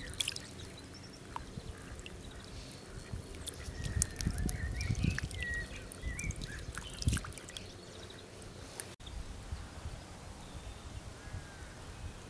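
Water pouring and small fish splashing as a keepnet of gudgeon is tipped back into a pond, with small birds chirping. About nine seconds in the splashing stops, leaving quieter pond-side air with occasional bird calls.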